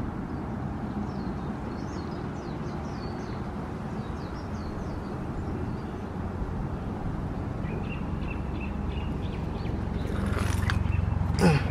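Toyota Tacoma X-Runner's 4.0-litre V6 idling steadily through Flowmaster Super 10 mufflers, heard from under the truck, with faint bird chirps over it. A short, louder rising burst comes just before the end.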